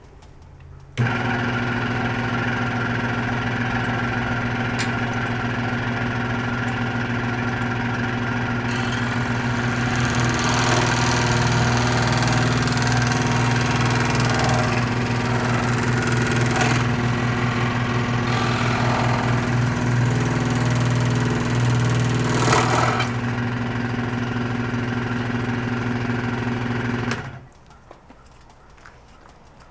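An electric power tool's motor running steadily with a strong hum, cutting into a plastic (HDPE) drawer rail. It sounds rougher and brighter through the middle of the run and stops abruptly about 27 seconds in.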